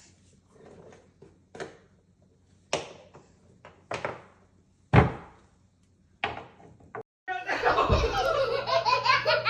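A series of short, sharp thuds, about six over five seconds, each dying away quickly. From about seven seconds in, they give way to a continuous stretch of voices and laughter.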